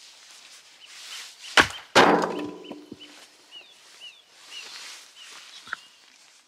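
An axe splitting a log on a wooden chopping block: two sharp wooden strikes about half a second apart, the second the louder, with a short ringing tail.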